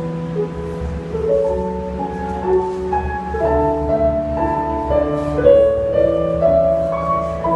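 Background music: a slow melody of held, ringing notes moving step by step over a steady low drone.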